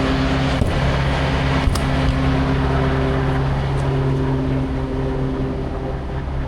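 An engine running steadily with a low, even hum, with two light clicks about half a second and nearly two seconds in.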